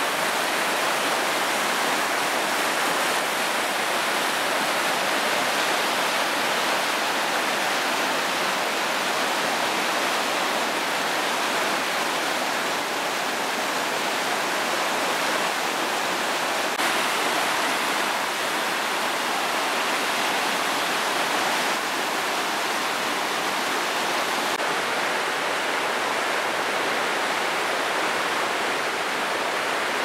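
River rapids rushing: fast whitewater pouring over rocks in a steady, loud rush, with slight shifts in tone a few times.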